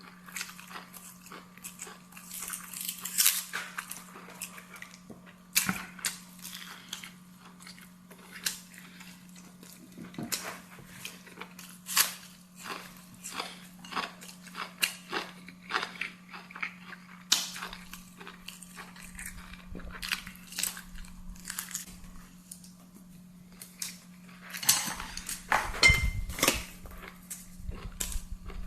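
Close-up mouth sounds of a person eating: irregular chewing, smacking and small crunches, with a louder cluster of mouth sounds near the end. A steady low hum sits underneath.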